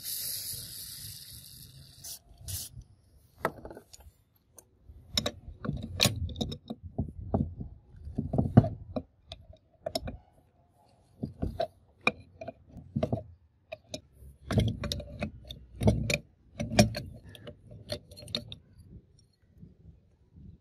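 An aerosol spray hisses for about two seconds, penetrating oil aimed through a red straw at a seized nut on a rusty hydraulic jack. It is followed by irregular metal clanks and knocks as a tool is worked against the jack held in a steel bench vise.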